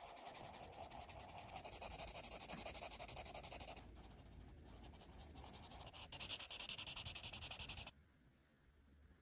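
Ohuhu dual-tip marker stroking over colouring-book paper: a dense, scratchy rubbing of quick strokes, softer for a couple of seconds in the middle, then louder again before stopping about eight seconds in.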